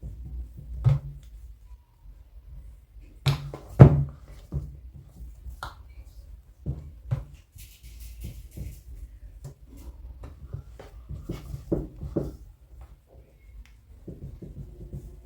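Hands shaping chapati dough into balls and setting them down, with irregular soft thuds and knocks on the work surface, the loudest a few seconds in.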